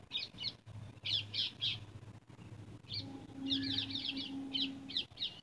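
A small bird chirping nearby: short high notes in groups of two or three, with a quick run of notes about three and a half seconds in. A low hum comes and goes underneath.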